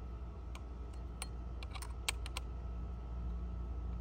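Light clicks and taps of a screwdriver working a small screw on a pole saw's gear head: about ten sharp separate clicks, bunched together in the middle, over a low steady rumble.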